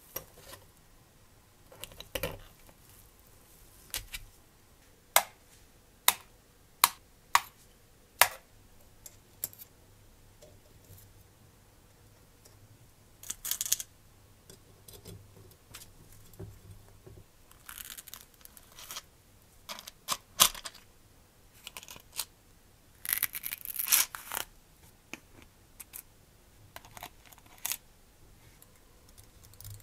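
Steel tweezers clicking against small steel screws, nuts and washers in a plastic compartment box: a string of sharp single clicks, then several short bursts of clinking as parts are picked through.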